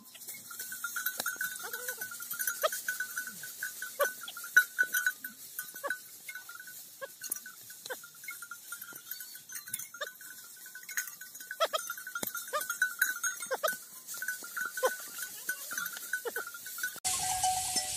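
Bullocks treading over heaped paddy straw to thresh rice: scattered crackles and knocks from hooves and straw, over a steady high chatter. About a second before the end the sound changes abruptly to a steady hiss with a hum.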